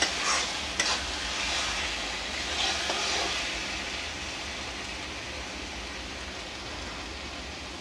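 Spiced tomato masala sizzling steadily in oil in a metal kadai, with a couple of spatula knocks against the pan in the first second; the sizzle slowly gets quieter. The masala is well fried and the oil has separated from it.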